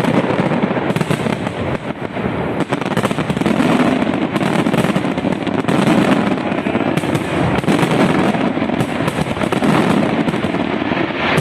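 Fireworks going off in a dense, continuous barrage, many bangs and crackles overlapping with no pause.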